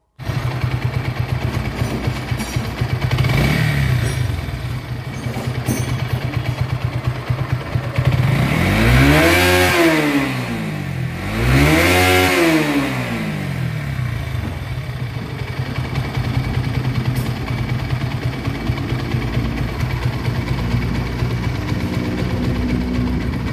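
Bajaj Pulsar AS 150's single-cylinder engine idling, blipped briefly once and then revved up and back down twice in quick succession before settling back to idle. The bike blows white smoke from its exhaust while its engine oil level does not drop.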